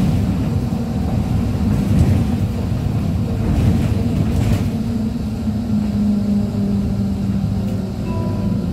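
Interior of a MAZ 103.485 city bus under way, heard near the rear door: its Mercedes-Benz diesel engine running with rumbling road and tyre noise. A low steady drone stands out from about five seconds in.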